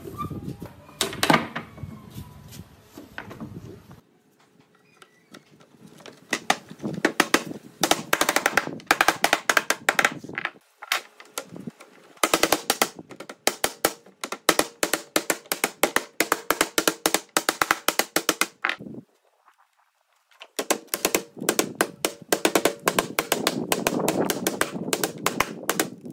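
Rapid light hammer taps on notched wooden slats, knocking the cross-pieces of a lattice grid down into each other's notches. The taps come in three quick runs, broken by short silences.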